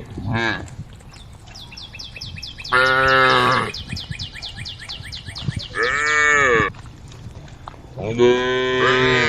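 Cattle mooing: a short call right at the start, then three long moos about three, six and eight seconds in, the middle one bending down in pitch. These are cows calling to the herd.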